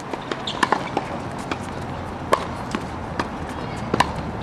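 Tennis ball struck by racket strings in a baseline rally: sharp pops about every one and a half to two seconds, with fainter ball bounces and hits in between.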